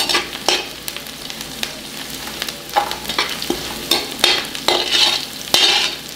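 Sliced onions and shallots sizzling as they fry in a large metal kadai, stirred with a metal slotted spoon that scrapes and clinks against the pan in irregular strokes.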